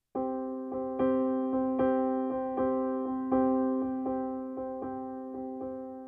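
Background music: a keyboard tune in an electric-piano sound, starting suddenly a moment in and going on in evenly paced notes.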